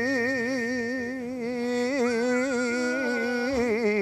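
A voice singing one long held note with a wide, fast vibrato, ending with a few quick wavering turns. A thin, steady whistle-like tone sits above it and drops a step in pitch about two seconds in.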